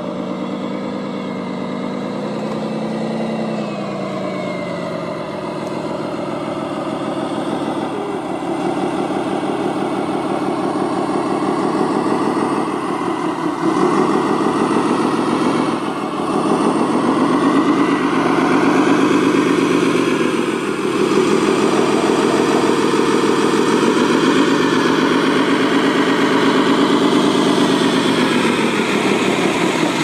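Radio-controlled model construction machines (wheel loader, dump truck, excavator) working, their engine sound steady but rising and falling in pitch as they move. It grows louder over the first half.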